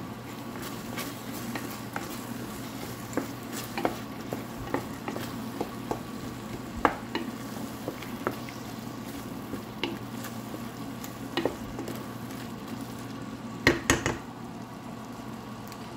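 A thick tomato and onion mixture sizzling in a stainless steel pot while a wooden spoon stirs it, scraping and clicking against the pot. Two louder knocks of the spoon on the pot come near the end.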